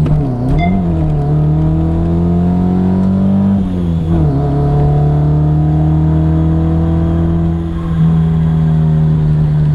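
Nissan 240SX engine revving: a couple of quick dips and rises in pitch in the first second, then a steady climb, a sudden drop in pitch about four seconds in, and a nearly steady, slowly rising note after that.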